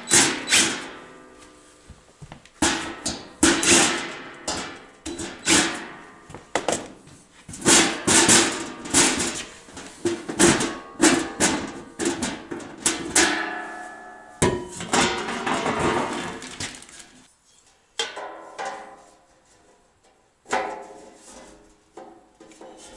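Sheet-metal electrical wireway and its end caps clanking as they are handled and set in place: a run of irregular sharp metallic knocks, each ringing briefly, with a longer stretch of denser noise about two-thirds of the way through.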